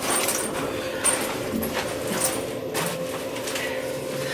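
Inside a moving Kone elevator car: a steady hum with a few scattered clicks and knocks.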